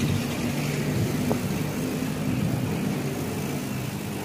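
City street traffic: a motor vehicle engine running with a steady low hum.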